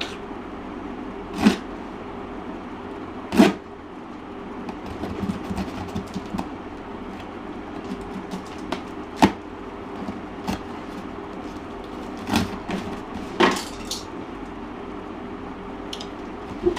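A parcel being handled and worked at by hand: several sharp knocks and bumps of packaging, with light crinkling in between, over a steady hum.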